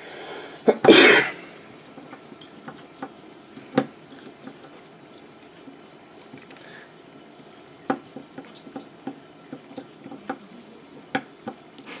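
Small screwdriver working the screws out of an Antminer U3's metal heatsink: scattered light metallic clicks and taps. There is a brief, louder noisy burst about a second in.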